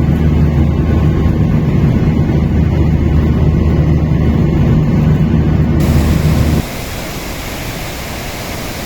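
A loud, steady low mechanical drone, like an engine running. About six and a half seconds in, it cuts abruptly to a quieter, steady rushing hiss.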